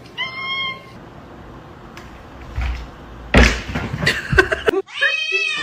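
Domestic cat meowing: a short call at the start and a longer rising-and-falling meow near the end. A few loud knocks or thumps come just before the long meow.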